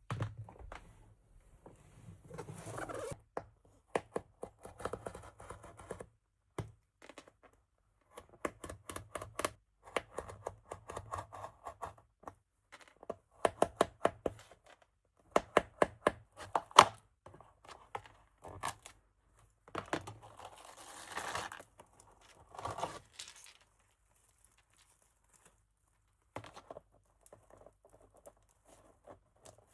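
Plastic packaging of a diamond-painting kit being handled and opened: crinkling and tearing, with irregular runs of sharp clicks and a longer rustle about two-thirds of the way through.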